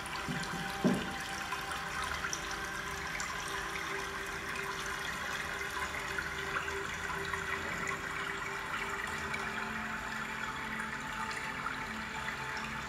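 Steady trickling, running-water noise with a few faint held tones underneath, and a single low thump about a second in.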